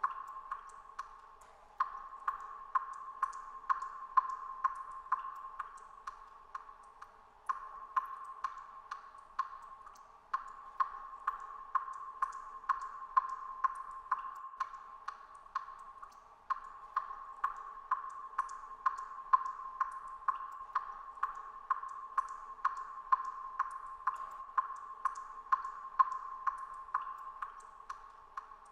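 Water dripping in a cave: a steady run of drips, about two a second, each a short ringing plink that echoes off the rock.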